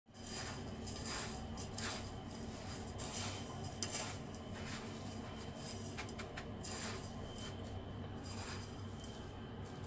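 Dry breadcrumbs rustling and crunching as fingers press and turn egg-coated chicken pieces in a stainless steel bowl, in irregular soft strokes with a sharper tick about four seconds in.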